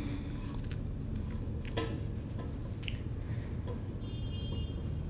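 Quiet room tone: a steady low hum with a few faint, scattered clicks and a brief faint high tone about four seconds in.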